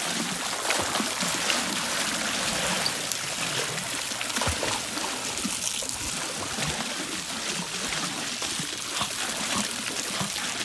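Garden hose on a jet-stream setting spraying a stream across a swimming pool: a steady hiss and splatter of water on water, with small splashes as a dog paddles through the spray.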